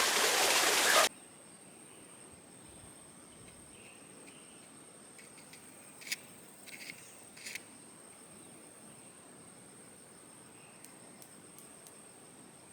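A loud rushing hiss that cuts off abruptly about a second in, followed by quiet forest ambience: a steady high-pitched insect drone with a few short faint chirps around the middle.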